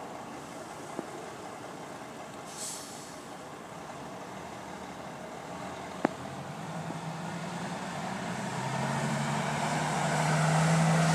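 Loaded log truck's diesel engine running and growing steadily louder over the second half as it pulls around, after a short air hiss about two and a half seconds in. A single sharp click sounds about six seconds in.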